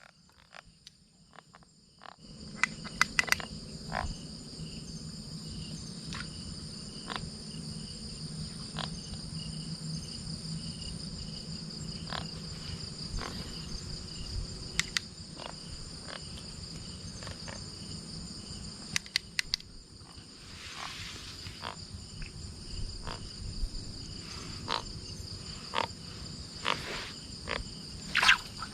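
Night chorus of crickets and frogs: steady high-pitched insect trilling with a low frog hum beneath, starting about two seconds in. Scattered sharp clicks and knocks sound over it.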